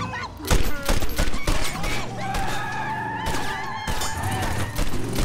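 Repeated gunshots fired in rapid succession, with a car horn sounding steadily for about two seconds in the middle.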